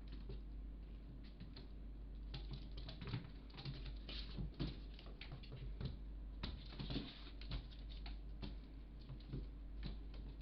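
A cat's paws pattering and scrabbling in quick, irregular taps as it dashes and pounces after a laser dot.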